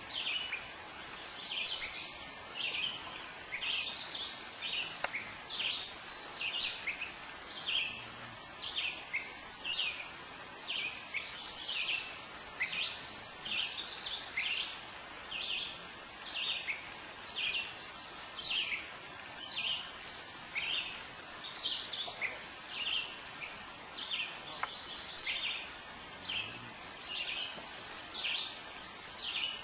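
Many birds chirping and singing over one another in a dense, unbroken chorus of short, high, quickly repeated notes.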